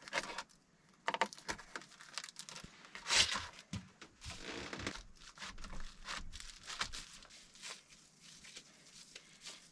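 Plastic packaging of ground beef being torn open and crinkled, an irregular run of crackles and rustles with the loudest rip about three seconds in.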